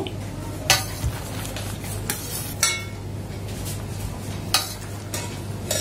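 A steel ladle clinks and scrapes against a steel pot and a steel mixer-grinder jar while soaked dried red chillies are scooped from one to the other. There are several separate clinks; one about two and a half seconds in rings briefly. A steady low hum runs underneath.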